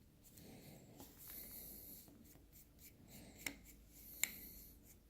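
Faint scraping and rubbing of a screwdriver backing small screws out of a Victor Exhibition phonograph reproducer, with two sharp little clicks about three and a half and four seconds in.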